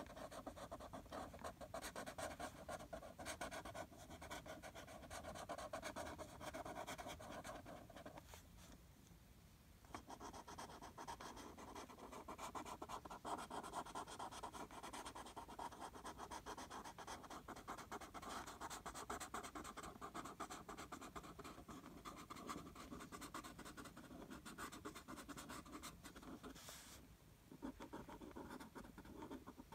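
Felt-tip marker scratching rapidly back and forth on paper while colouring in, with short pauses about eight seconds in and again near the end.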